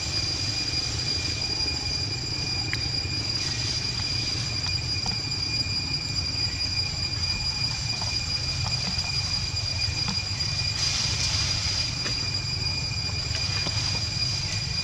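Steady high-pitched insect drone, a continuous whine that swells briefly about eleven seconds in, over a low rumble.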